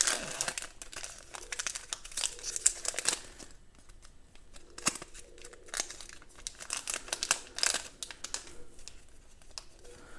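Shiny foil wrapper of a trading card pack crinkling and tearing as it is opened and the cards are pulled out, in irregular bursts with quieter gaps about four seconds in and near the end.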